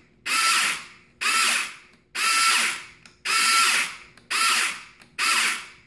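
Nerf Rapidstrike pusher motor and gearbox whirring in short bursts, seven in all at about one a second. Each burst starts abruptly as the main trigger is pressed and fades quickly on release as the motor coasts. This is the new three-microswitch wiring, under which the pusher sometimes stops before fully retracting.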